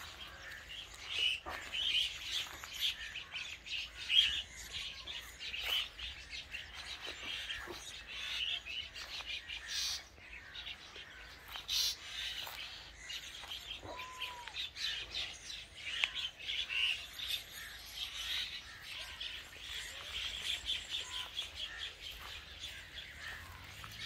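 Myna chicks calling from a tree: rapid, repeated harsh chirps and squawks, with a sharp click about four seconds in.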